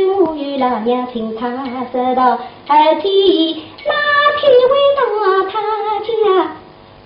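A woman singing a Shanghai opera (Huju) aria in a long melodic line, the voice gliding up and down, and breaking off in a short pause near the end.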